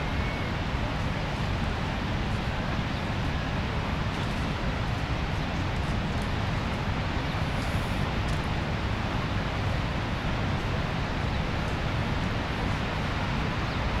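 Steady, unbroken rush of water from the Rhine Falls, a large river waterfall.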